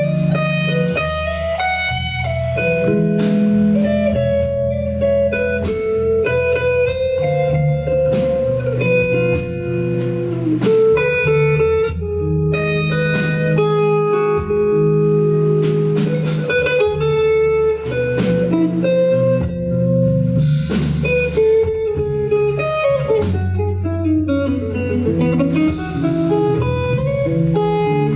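Live instrumental guitar music: a melodic, picked guitar line over low held notes, played without vocals or drums.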